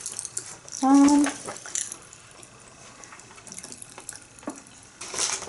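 A plastic water bottle being picked up and handled, water sloshing inside, with a brief rustle near the end.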